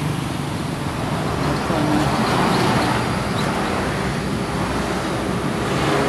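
Road traffic climbing a steep hill: the engine and tyre noise of passing vehicles, likely a bus, swelling a little about two seconds in.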